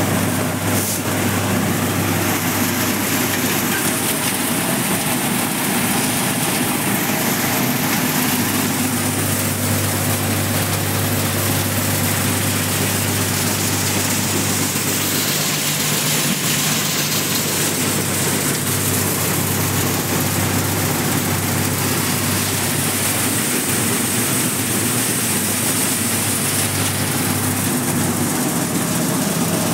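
Tractor-driven Reinforce multi-crop thresher running steadily while threshing soybean: a constant low engine hum under the steady whir of the threshing drum and fan.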